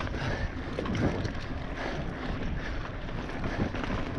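Mountain bike rolling fast downhill over a rough trail: tyres rumbling over the ground, with many small knocks and rattles from the bike, and wind buffeting the microphone.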